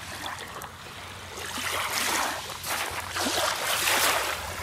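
Small waves washing up on a sand-and-gravel beach: a hiss of water that swells twice, about two seconds in and again, louder, near the end.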